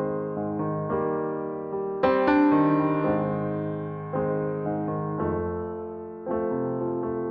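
Background piano music: gentle chords struck about once a second, each left to ring and fade.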